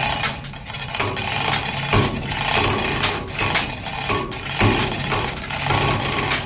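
Electric hoist motor running with a steady hum and clattering, cutting in just before and stopping abruptly a little after, as the chain takes up the load to pull the ladle apart.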